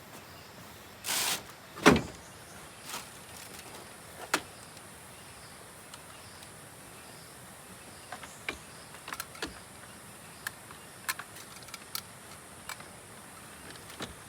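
Camp gear being handled and packed at a car: a brief scrape, then a loud thump just before two seconds in, followed by scattered light knocks and clicks.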